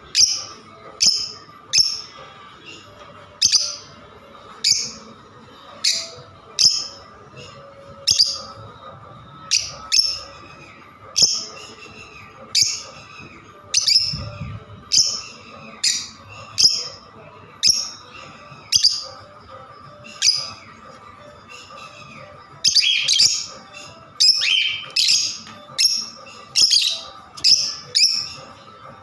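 Pet lovebirds chirping: short, sharp, high calls repeating about once or twice a second, coming faster and louder from about 23 seconds in.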